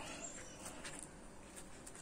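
Faint rustling of a turmeric leaf being rolled by hand around a fish, with a few light crinkles.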